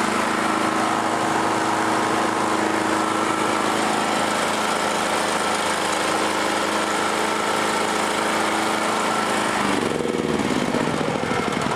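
Interskol EB-6500 petrol generator's 15 hp engine running steadily after a new spark plug and plug cap were fitted. Near the end its pitch drops as the engine slows down.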